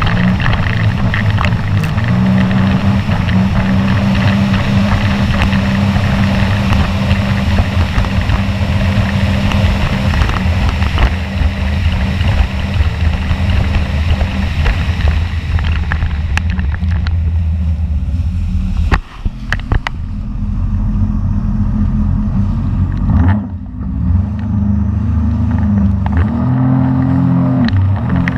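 Personal watercraft (jet ski) engine running at speed over choppy water, with wind and spray noise on the microphone. Its level dips briefly twice, about two-thirds of the way through, then picks up again.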